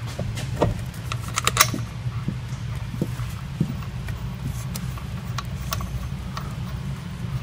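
Scattered light metallic clicks and ticks as 12-point 10 mm bolts are handled and started by hand into a driveshaft flange, most of them bunched about a second in. A steady low hum runs underneath.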